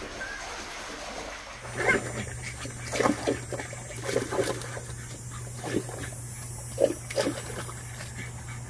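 A Boston terrier playing in a foam-filled kiddie pool, making a string of about eight short grunts and splashes in loose clusters over a steady low hum.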